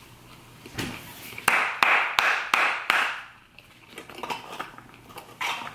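Close-miked chewing of McDonald's fast food: a run of sharp, wet mouth clicks and crunches about a second and a half in, then a few fainter smacks near the end.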